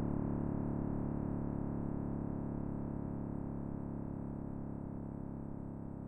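Synthesized deep drone, a sonification of the Big Bang's sound: a thick stack of steady tones with a pulsing low end, slowly fading away.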